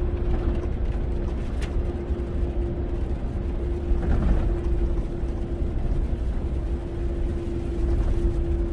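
Cab interior of a Volvo FH truck driving on a wet road: steady low engine drone with tyre and road noise. A thin, constant whine runs through it.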